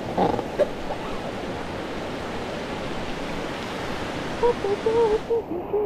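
Steady rushing noise with a short knock just after the start. From about four and a half seconds in there is a string of low, steady hooting notes, and the high hiss cuts off suddenly just before the end.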